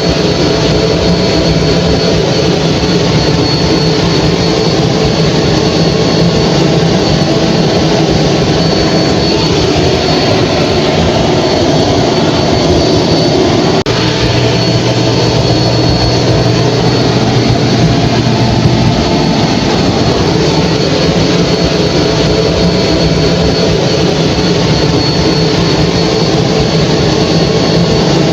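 Hair dryer running steadily: a constant rush of blown air over a low motor hum, with a faint high whine. The hum shifts a little in pitch about halfway through, then settles back.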